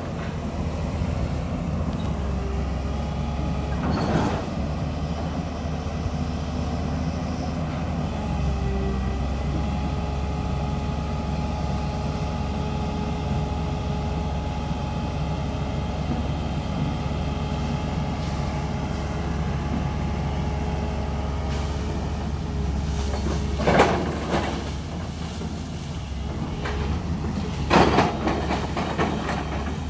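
Tata Hitachi hydraulic excavator running steadily, its diesel engine with a held hydraulic whine as the boom works. Near the end come two louder rushing bursts about four seconds apart, the second as water is tipped from the raised bucket onto the cab.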